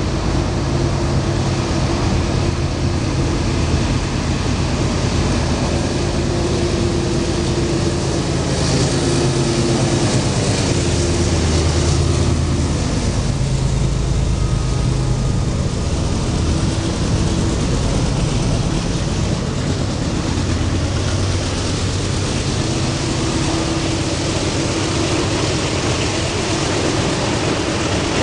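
CSX freight train passing close by: the diesel locomotives' engines run with a steady hum, loudest as the locomotives go past around the middle, then freight cars roll by.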